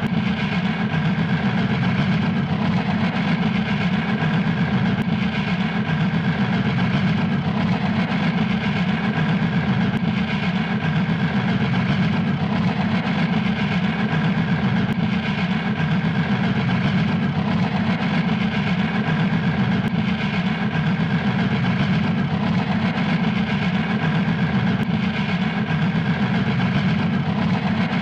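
Fast puffing, a rapid and even run of puffs at a steady pace and level.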